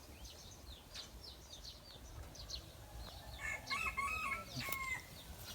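A rooster crowing faintly once, a held call of about a second and a half starting about three and a half seconds in, over small birds chirping in quick, high, falling notes throughout.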